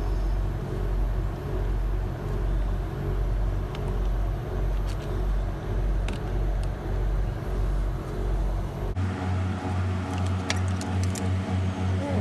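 Steady low mechanical hum from a running motor or engine, pulsing about twice a second, that changes abruptly about nine seconds in, with a few faint clicks near the end.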